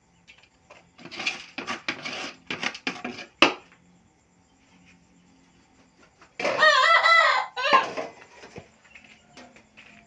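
A rooster crowing once, a long wavering call about six seconds in. Before it come a few seconds of short rasping sounds, ending in a sharp knock.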